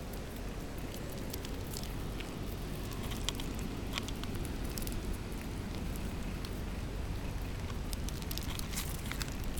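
Light, irregular clicks and scuffs of a Shiba Inu puppy's paws and claws on asphalt as it runs up and pounces at a foxtail grass stem, over a steady low rumble.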